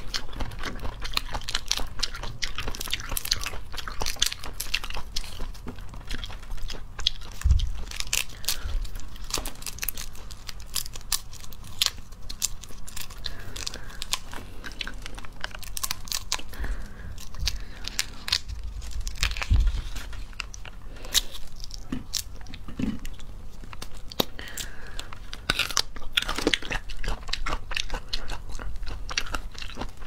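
Snake fruit (salak) peeled by hand: its thin, scaly skin cracking and crackling in many small, sharp snaps close to the microphone, with a few dull thumps of handling.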